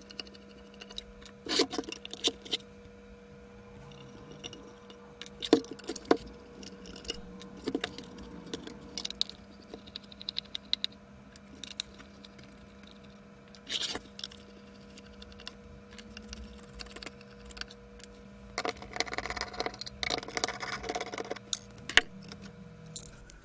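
A small screwdriver undoing screws and the plastic end caps of a steel-framed camera body being worked loose, giving scattered clicks and taps, with a longer rattling, scraping stretch near the end.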